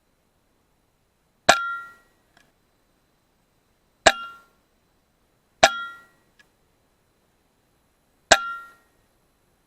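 Four shots from an FX Maverick PCP air rifle, each a sharp crack with a short metallic ring that dies away in under half a second. A faint tick follows two of the shots about a second later.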